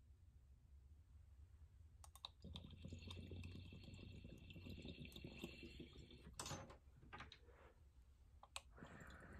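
Faint sizzle and crackle of liquid distillate vaporising on a hot dab-rig banger while it is drawn through the water bong, the water bubbling, lasting about four seconds from two seconds in. A short sharp knock of the tool or glass follows, and a soft breath of exhaled vapour starts near the end.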